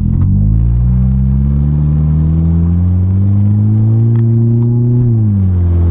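Car engine under hard acceleration, its pitch rising steadily for about five seconds, then dropping quickly near the end as the revs fall. Exhaust is loud, with a muffler removed.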